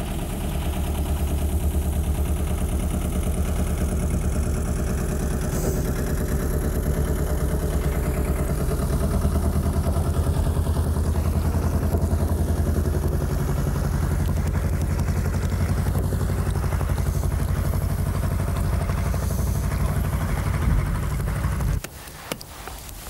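Canal narrowboat's engine chugging steadily at low revs as the boat passes, then cutting off suddenly near the end.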